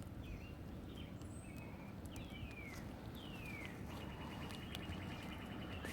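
Small birds calling. There are a few short chirps, then two clear whistles that fall in pitch, then a fast, even trill from about four seconds in, all over a steady low background rumble.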